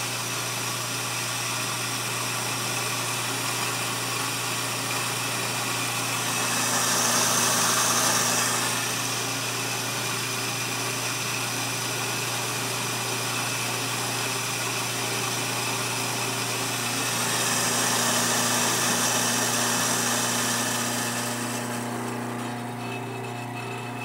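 Bunn GVH bulk coffee grinder running, its motor driving 80 mm flat burrs through coffee beans: a steady hum with a grinding hiss over it. The grinding grows louder twice, about 7 seconds in and again around 18 seconds in.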